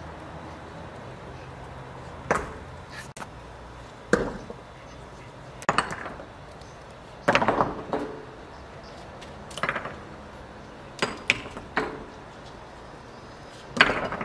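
Chopping strokes on a wooden surface: about nine sharp separate blows, spaced irregularly half a second to two seconds apart, some with a short rattle after the hit.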